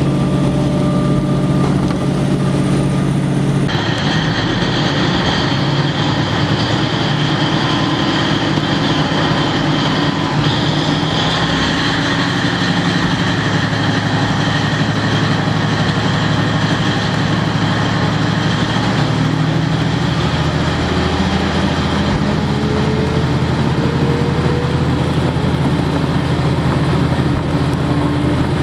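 KiHa 40 series diesel railcar heard from inside the car while running: a steady diesel engine drone with wheel and rail noise. About four seconds in, the sound abruptly turns rougher and fuller, with a high ringing added over the engine.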